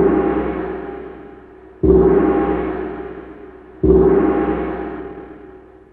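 A gong rings out, struck again about two seconds in and again about four seconds in, each stroke sounding suddenly and then fading slowly.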